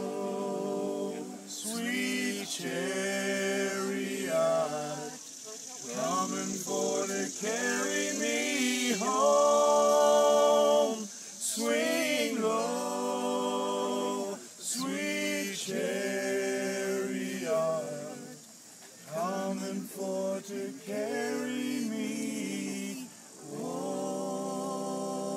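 Several men singing a bluegrass song together in harmony, in held lines with short breaks between them.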